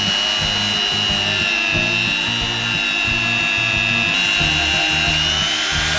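Handheld rotary tool running at high speed with a steady high whine while its black polishing wheel works the revolver's steel cylinder, over background music with a steady beat.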